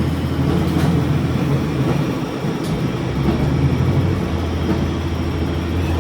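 Diesel railcar running along the line, heard from inside at the front: a steady low engine drone with a couple of faint clicks of the wheels over rail joints.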